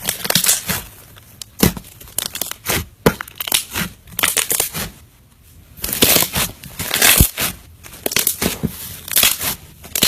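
Slime being squeezed and pressed by hand, giving dense irregular crackling, popping and squelching, with a brief lull about halfway through.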